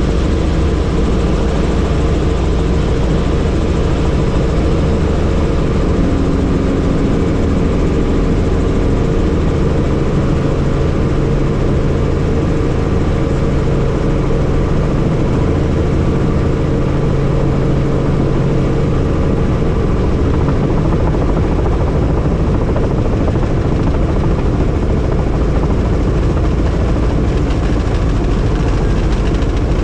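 Helicopter rotor and turbine engine running steadily, heard from on board as a loud, constant drone with several steady tones in it. A low tone stands out for a stretch in the middle.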